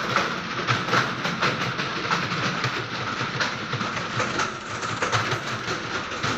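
Many computer keyboards being typed on at once: a dense, continuous clatter of overlapping keystrokes.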